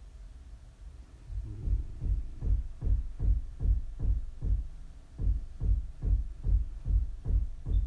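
A steady low thumping beat, about two and a half thumps a second, starting about a second and a half in.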